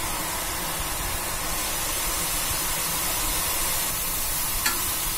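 Boondi (drops of gram-flour batter) deep-frying in hot oil on full flame: a steady sizzle, with one light tap near the end.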